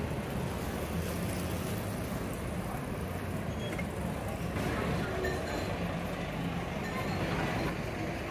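Road traffic on a busy city street: vehicle engines running in a steady low rumble.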